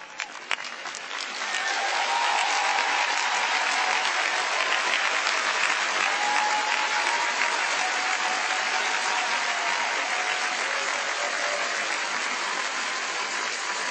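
Large arena audience applauding at the end of a figure skating program: a few scattered claps at first, swelling within a couple of seconds into steady, dense applause that eases slightly near the end.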